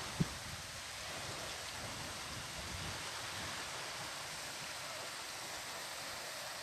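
Steady wash of surf at the seaside, an even hiss with no breaks. A single brief low thump comes just after the start.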